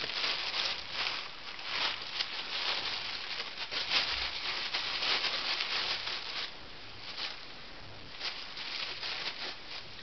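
Thin plastic shopping bag rustling and crinkling in irregular bursts as a ferret burrows and wriggles inside it. The bursts are busiest for the first six seconds or so, then sparser and fainter.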